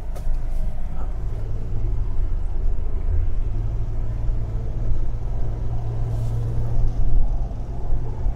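1970 Buick Estate Wagon's 455 V8 heard from inside the cabin as a steady low drone while driving, with road noise from the wet highway. The drone steps up slightly about three seconds in.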